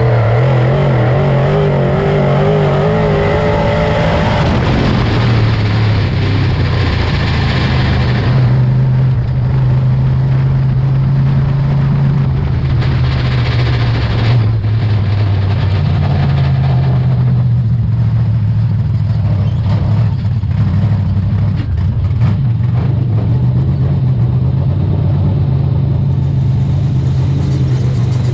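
Super Dirt Late Model race car's V8 engine running hard through qualifying laps, its pitch wavering in the first few seconds and then holding fairly steady.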